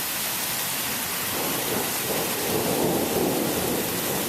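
Steady rain in a thunderstorm, with a rumble of thunder setting in about a second in.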